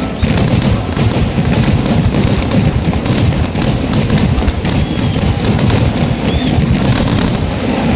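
Fireworks bursting in quick, overlapping succession, a continuous rumble of booms and crackle, with music playing along.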